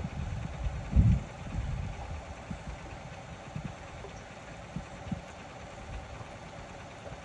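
Small boat's outboard motor idling with a steady low rumble, and a dull thump about a second in.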